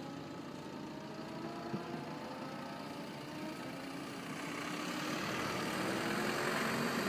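Small hatchback car's engine running at low speed as it drives slowly across tarmac, growing louder as it approaches, with tyre and road noise rising near the end. A brief knock sounds a little under two seconds in.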